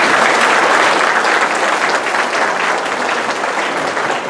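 Audience applauding, many hands clapping together and easing off slightly near the end.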